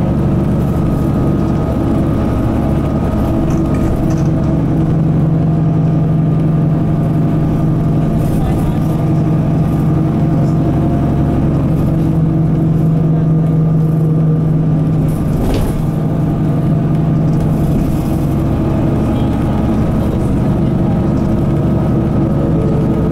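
A Mitsubishi Fuso Aero Midi MK bus's 6M61 six-cylinder diesel engine running steadily as the bus drives, heard from inside the cabin. A single short knock comes about fifteen seconds in.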